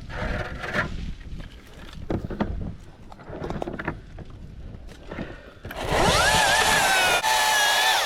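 Milwaukee battery-powered top-handle chainsaw spinning up with a quickly rising whine, running at a steady high pitch for about two seconds, then stopping. Before it come scattered knocks and rustling.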